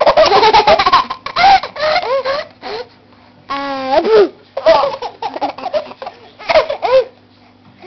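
Baby laughing in repeated bursts, with short pauses between them, dying away near the end.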